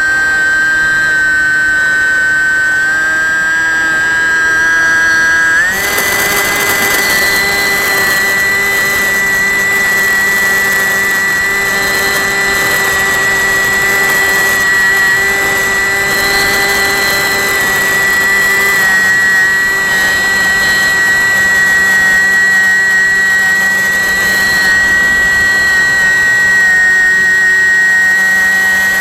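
Brushless outrunner motor and propeller of a Bixler 1.1 foam RC plane in flight, a steady high-pitched whine recorded from on board. About six seconds in, the pitch steps up as more throttle is given, then holds steady.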